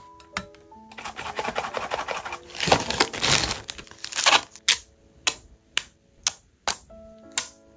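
A clear plastic sticker sheet crinkling as holographic stickers are peeled off it, then about six sharp clicks of tweezers tapping on a hard plastic jewellery case as a sticker is set in place.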